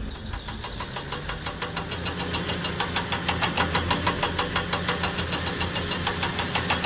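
A vehicle engine running steadily with a fast, even knocking clatter, about ten strokes a second, over a low hum. A faint high whine joins about four seconds in.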